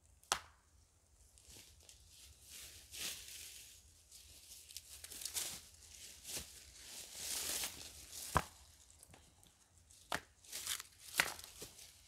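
Irregular handling noises: rustling and crinkling with scattered sharp knocks, the loudest about a third of a second in and again about eight seconds in.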